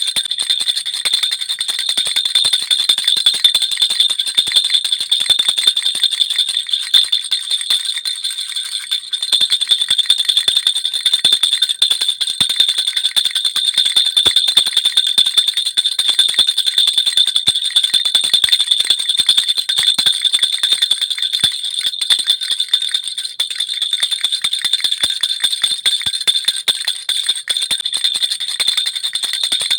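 Baby rattle (jhunjhuna) shaken continuously, a dense, fast jingling with small bells ringing brightly throughout.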